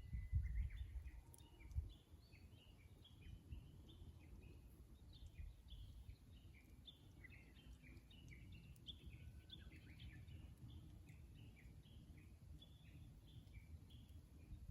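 Small birds chirping and twittering throughout in many short, high notes, with a faint low rumble that is strongest in the first two seconds.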